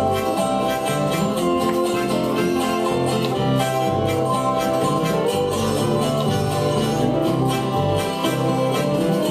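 Acoustic string band playing an instrumental break: strummed acoustic guitars keeping a steady rhythm, with fiddle and a held-note lead over them.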